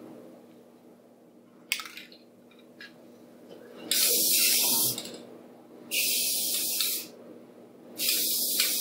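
Aerosol spray-paint can spraying black paint in three short bursts of hiss, each about a second long and about a second apart, with a single sharp click about two seconds in.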